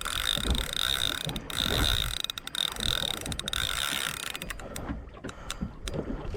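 Large Shimano Saragosa spinning reel whirring and clicking as line is worked under the load of a big snapper. The steady whir is strongest over the first few seconds, then fades, with scattered clicks throughout.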